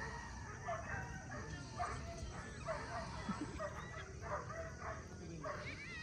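Dogs barking and yipping over and over in short, separate calls.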